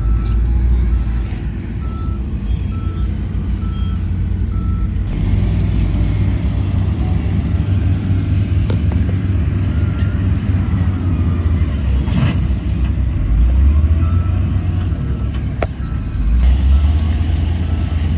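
Heavy diesel construction machinery running with a deep steady rumble. A reversing alarm beeps about once every 0.7 s for the first four seconds, then again more faintly later on. There is a sharp knock about twelve seconds in.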